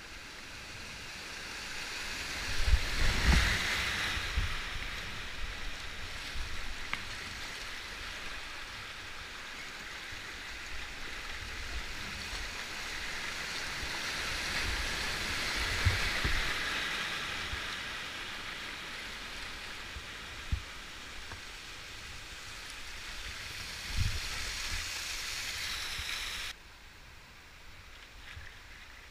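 Rushing whitewater of a steep rocky river rapid, heard from the kayak, swelling twice as the boat runs through white water, with a few low thumps. It drops abruptly to quieter flowing water near the end.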